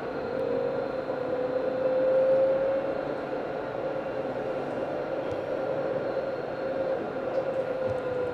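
Alstom Citadis tram running along grass-covered track, heard from the front cab: a steady rolling noise with a single whine that climbs a little in pitch over the first few seconds and sags slightly near the end.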